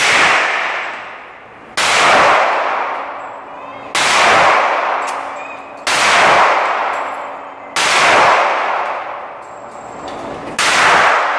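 Handgun fired six times at a slow, steady pace, about one shot every two seconds, each sharp report followed by a long echoing decay in the indoor range.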